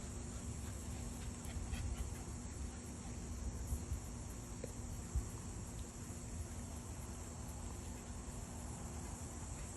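Steady high-pitched chirring of insects, over a low steady hum and a few soft bumps.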